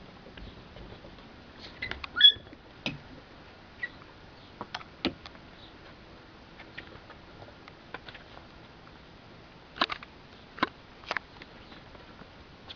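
Puppies' paws and claws tapping and clicking irregularly on wooden deck boards, with a short high squeak about two seconds in, the loudest sound.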